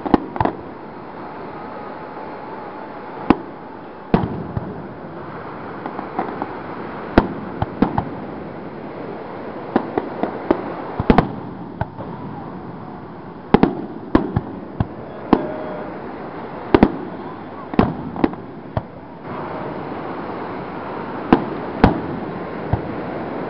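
Aerial firework shells bursting: more than a dozen sharp bangs at irregular intervals, some a second or more apart and some in quick clusters, over a steady background hiss.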